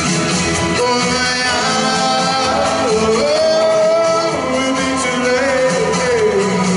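Music for a slow ballad in a Latin style. The melody moves in long held notes that bend slightly in pitch, over a steady accompaniment.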